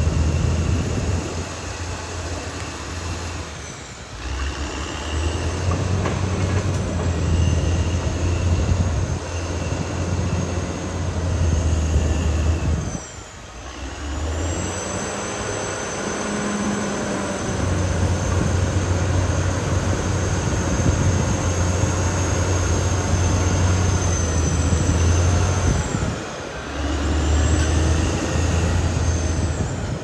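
Caterpillar D6R XL crawler bulldozer working: its diesel engine runs with a steady low drone under a high-pitched whine. The sound briefly drops away three times, about 4, 13 and 26 seconds in.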